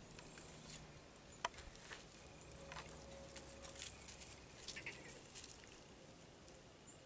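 Faint rustling and crackling of dry leaf litter, with one sharp click about a second and a half in.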